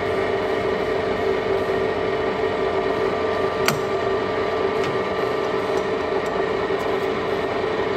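Colchester Triumph 2000 lathe running with a steady mechanical whine from its drive and gearing, while its apron handwheel and feed levers are worked. A sharp metallic click comes about three and a half seconds in, with a few fainter ticks after it.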